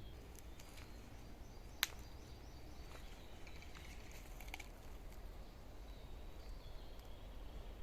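Quiet forest ambience: faint bird chirps over a low rumble of wind on the microphone, with one sharp click or snap about two seconds in.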